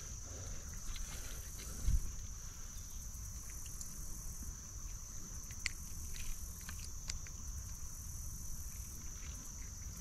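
Steady high-pitched insect drone from the creekside vegetation over a low rumble of wind and handling noise, with a dull thump about two seconds in and a few faint clicks later on as the hooked fish is handled.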